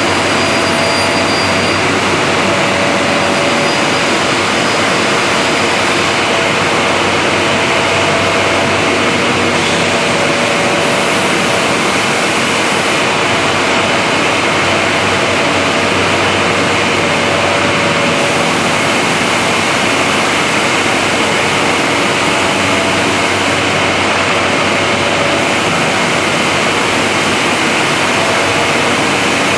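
CNC corner-joint cutting machine running, a loud steady noise with a few faint steady tones through it and no breaks.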